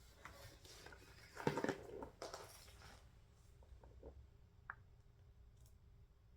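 Kit items being handled: a burst of rustling and clattering about a second and a half in, then a few light taps and clicks.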